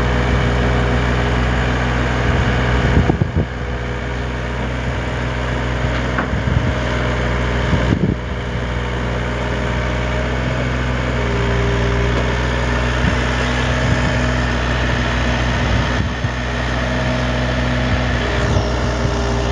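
Yanmar B25V mini excavator's diesel engine running steadily, with a few sharp clanks about three and eight seconds in.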